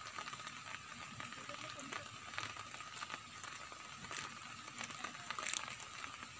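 Faint crackly patter of water dripping and splashing around a lift net being worked in shallow water, with scattered small ticks and one sharper splash or tick about five and a half seconds in.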